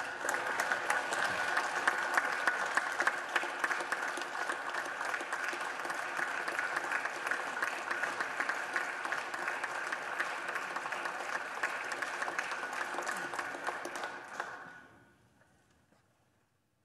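Applause, many hands clapping steadily for about fourteen seconds, then dying away quickly.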